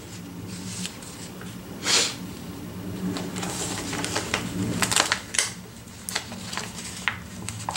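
Paper sticker sheets being handled and shuffled: several short rustles and light taps, over a steady low hum.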